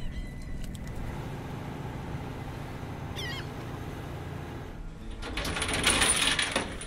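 Shrimp boat's engine running with a steady low rumble, a short bird call about three seconds in, then a loud rushing noise for about two seconds near the end.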